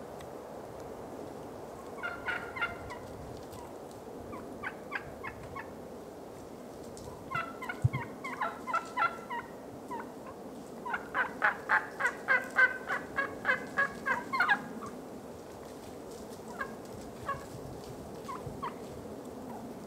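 A flock of wild turkeys calling: runs of short, evenly spaced notes, the longest and loudest run lasting several seconds about midway, at roughly four or five notes a second, with scattered single notes before and after.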